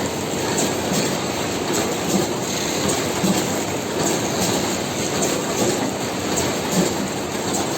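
Automatic vertical packaging machine running steadily, with a regular mechanical clatter as it cycles.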